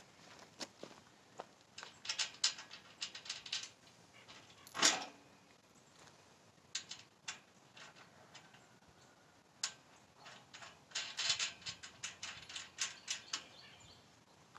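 Metal clinking and clicking of bolts, washers and hand tools as sections of a steel hay ring are bolted together, coming in several quick runs of clicks. One louder clank about five seconds in.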